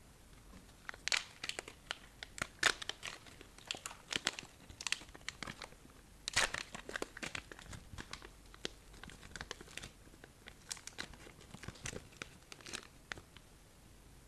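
Slime being squished and kneaded by hand, giving irregular clusters of sharp crackling pops and clicks as air pockets burst.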